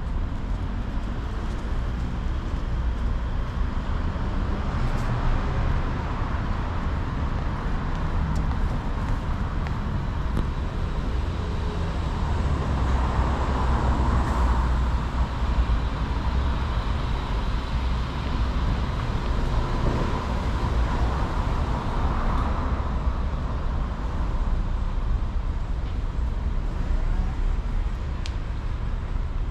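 Street traffic: a steady rumble of cars on the road alongside, swelling as vehicles pass about halfway through and again a few seconds later.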